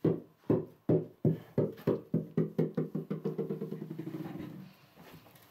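Small rubber super ball bouncing on a wooden floor, the bounces coming faster and quieter until they run together into a rapid patter and stop about four and a half seconds in.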